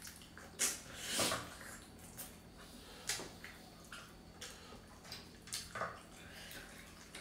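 Eating by hand: rice with dal and pork mixed with the fingers on plates, with wet squelching, chewing and lip smacks, and a scattered handful of short clicks and taps, the sharpest under a second in.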